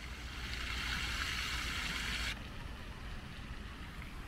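Hiss of spraying fountain water that swells about half a second in and cuts off suddenly just after two seconds, over a low rumble of wind on the microphone.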